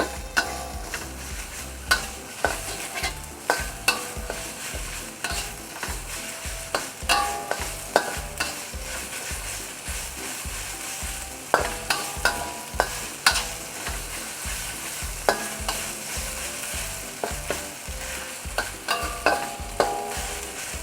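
Pounded spice paste sizzling in hot cooking oil while a spatula stirs it, knocking and scraping against the pan in frequent sharp clicks, some with a short ring.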